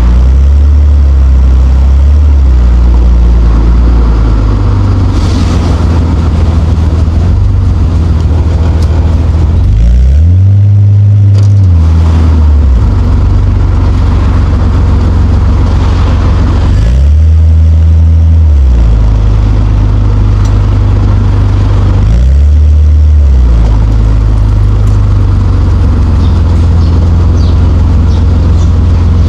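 Nissan Skyline R34 GT-T's turbocharged straight-six running loud in city driving. Its note climbs and drops in pitch about three times, around a third of the way in, past halfway and again a little later, as it revs and settles between gear changes.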